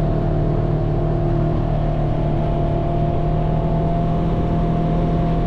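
Engine of a Polaris RZR side-by-side running steadily at constant speed, heard from on board, with rough noise from the ride underneath.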